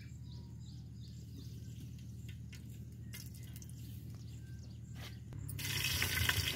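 Green chillies hitting hot oil in an aluminium pot start a loud, steady sizzle near the end. Before that, only a low hum and a few faint bird chirps.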